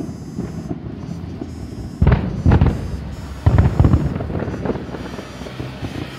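Fireworks shells bursting: two heavy booms about a second and a half apart, each followed by a quick run of crackling reports that die away.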